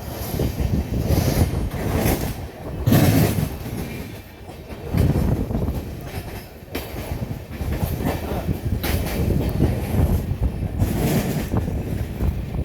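Express passenger train running at speed, heard from on board: steady rumble of wheels on rail with clattering, the noise rising and falling in uneven surges every second or two.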